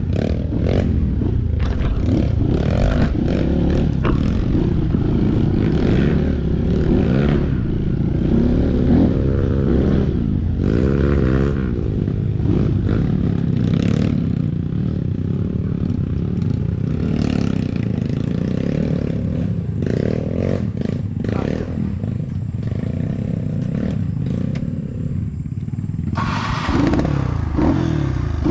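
Trail motorcycle engine running, its speed rising and falling as the throttle is worked, with occasional knocks from the bike.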